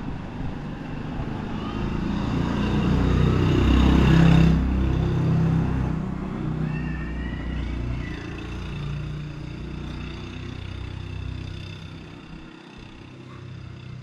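A motor vehicle driving past close by: its engine and tyre noise swell to a peak about four seconds in, then fade slowly as it moves away.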